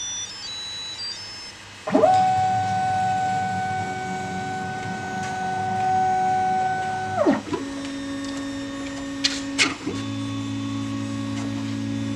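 A 3D printer's stepper motors whining in steady pitched tones as the machine moves at the end of a print. A higher whine starts about two seconds in and holds for about five seconds, then gives way to a lower, steady hum, with two sharp clicks near the end.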